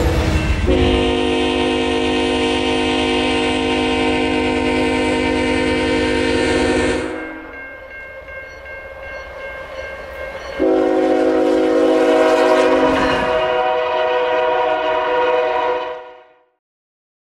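Diesel freight locomotive air horn sounding two long blasts, each a chord of several steady tones. The first lasts about six seconds over the low rumble of the train and the second about five; the sound cuts off shortly before the end.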